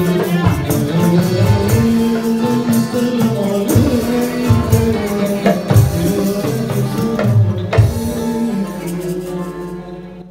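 Malay ghazal ensemble playing, with a tambourine beating the rhythm under gambus, violin and accordion. The music fades out near the end.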